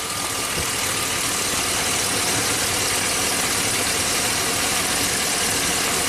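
V8 engine of a 2005 Chevy Silverado 2500HD idling with a misfire on cylinder two, with a snapping from that cylinder's spark plug wire: the spark is not getting into the cylinder, which looks to be down to a faulty plug wire.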